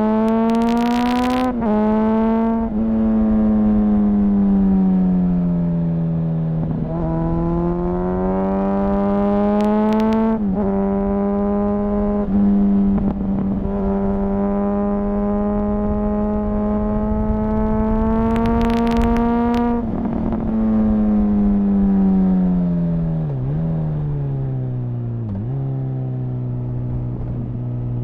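2004 Honda CBR1000RR Fireblade's inline-four engine heard onboard: it revs up and drops in pitch at each quick gear change, holds a steady pitch for several seconds in the middle, then winds down as the bike slows, with two short downshift dips near the end.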